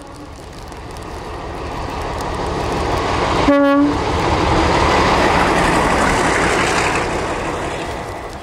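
Diesel locomotive passing close through deep snow, sounding one short horn blast about three and a half seconds in. The rush of the engine, wheels and churned snow swells as it goes by and then fades.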